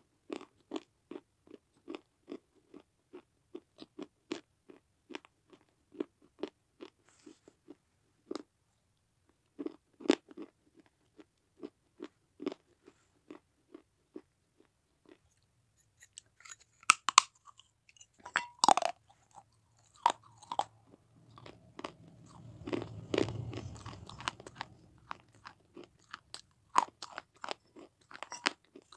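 Baked clay being chewed: crisp, regular crunching about twice a second. After a short pause come several louder sharp bites and cracks, the loudest about two-thirds of the way through, then a few seconds of low rumbling before the steady crunching resumes.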